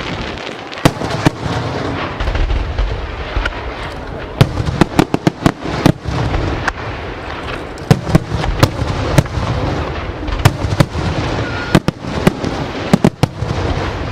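Aerial fireworks display: a rapid, irregular string of sharp bangs from bursting shells over a continuous rumble of further bursts. The bangs come thickest around the middle and again near the end.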